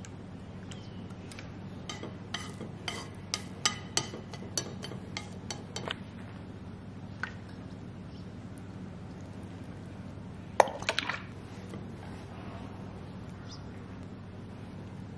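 Light clinks and taps of kitchenware. First a quick run of about a dozen sharp clinks over a few seconds, then one more, then a short louder cluster, all over a steady low hum.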